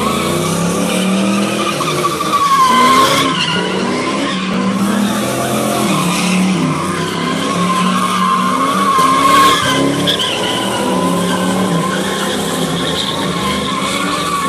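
Cars doing donuts: tyres squealing in one long, wavering screech while the engines are revved up and down again and again.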